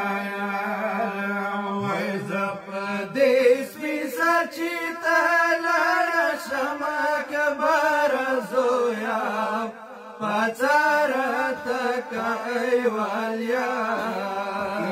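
Men's voices chanting a Pashto noha, a mourning lament, with no instruments. A long, wavering sung line runs over a steady low held note that drops away about two seconds in.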